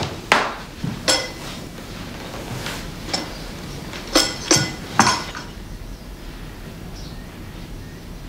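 China cups and saucers clinking against each other and the wooden coffee table as they are handled and set down. There are a few light knocks, then three sharper ringing clinks about half a second apart, a little past the middle.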